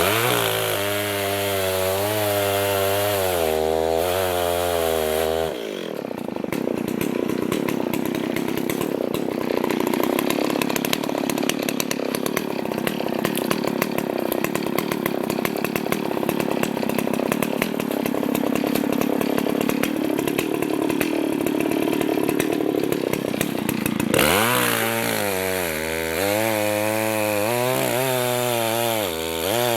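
Chainsaw engine running off the wood with a wavering pitch, then cutting into wood under load from about six seconds in, its note sagging as it works through the cut. Near the end it comes out of the cut and runs freely again.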